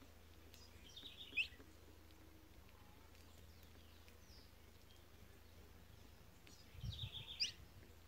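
A small songbird calling twice: a quick run of chirps ending in a sharp sweep, about a second in and again near the end. Faint steady low hum underneath, with a few soft low bumps near the end.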